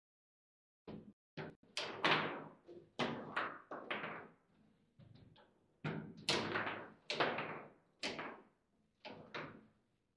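Table football being played: an irregular run of sharp knocks and clacks, about two a second, as the figures on the rods strike the ball and the ball and rods bang against the table.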